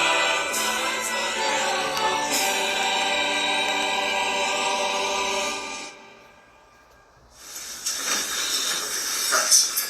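Choral music with jingling percussion, ending about six seconds in; after a short hush a hissing noise comes in.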